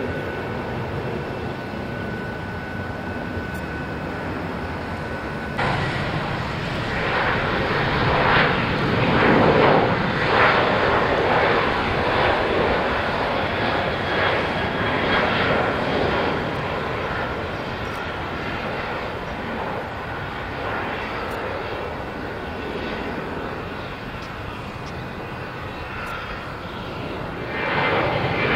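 Jet airliner engines: first a climbing Airbus A320-family jet with a steady whine, then, after a sudden cut about five seconds in, a Boeing 737's engines at high thrust on the runway. The 737's sound is a rumbling roar that swells, fades, and rises again near the end.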